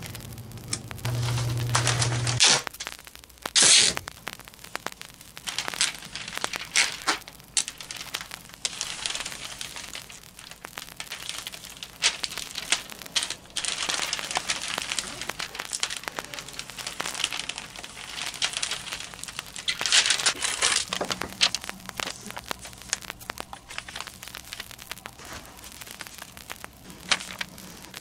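Black tape being ripped off the roll in long rasping pulls and pressed down onto crinkling plastic sheeting, in repeated bursts of uneven length.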